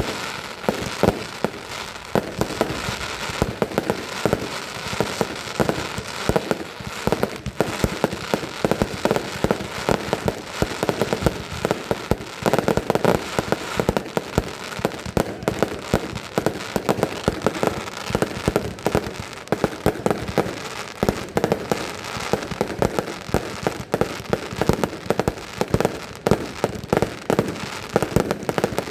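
Fireworks going off: a dense, unbroken run of bangs and crackles, many each second.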